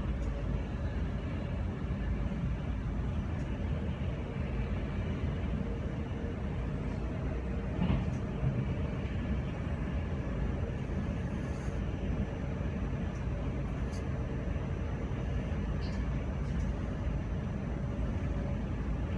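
Steady low rumble of a moving passenger train heard from inside the carriage, with a faint steady hum and a few light clicks and knocks, one a little louder about eight seconds in.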